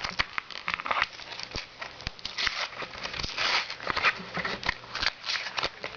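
Plastic blister pack and its card backing being pried and torn open by hand: a run of crinkling, sharp plastic cracks and clicks. The seal is heavily glued.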